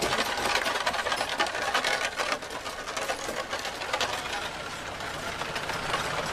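Bullock cart rolling past: a rapid, continuous rattling clatter from the cart and its team.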